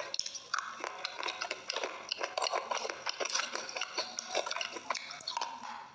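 Close-up crunching and chewing of slate pencil: a dense run of crisp crackles.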